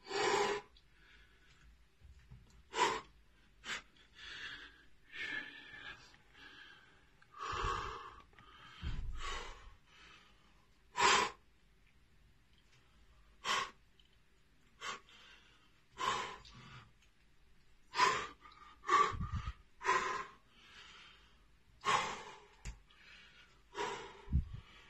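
A man's heavy breathing while flexing: short, forceful exhalations through pursed lips, irregularly every one to three seconds, with a few longer drawn-out breaths.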